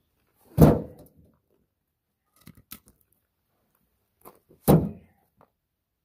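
Heavy log rounds dropped into a wheelbarrow: two loud thunks about four seconds apart, with a few lighter knocks of wood on wood between them.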